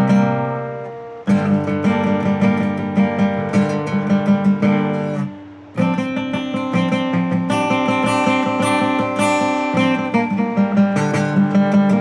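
Guitar played in quick strummed and picked strokes, moving through ringing chords. One chord is left to ring and fade over the first second before the playing resumes, and there is a brief break about five seconds in.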